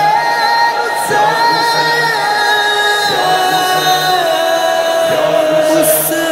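Male voices singing a cappella in the style of a Shia noha lament: a lead voice with backing singers, holding long notes that step to a new pitch about every second or two.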